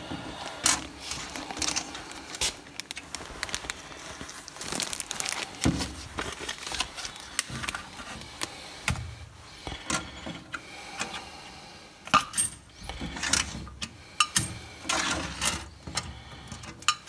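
Coins being pushed through the slot of an honesty box, clinking against each other and dropping inside: a series of sharp metallic clicks and clinks, more of them in the last few seconds.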